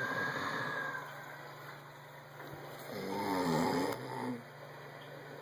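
A man snoring in his sleep: a breath in the first second, then a louder snore about three seconds in that lasts about a second and a half.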